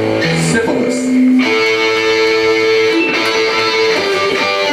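Live band music led by guitar, with ringing chords that change about a second and a half in and again near the end.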